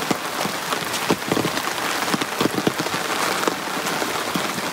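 Heavy rain pattering on an umbrella overhead, a dense hiss with many sharp taps of drops throughout.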